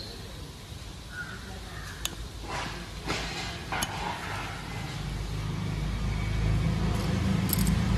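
A few light metallic clicks as a steel circlip is worked into its groove in a rear brake drum hub with circlip pliers. Under them a vehicle engine runs nearby as a low, steady rumble that grows louder in the second half.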